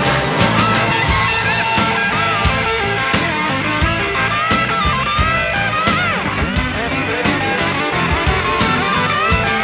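Rock music with a lead guitar playing a bending melody over a steady beat.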